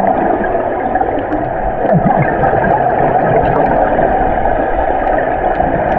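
Steady, muffled water noise picked up by an action camera inside an underwater housing during a dive, with a few faint clicks scattered through it.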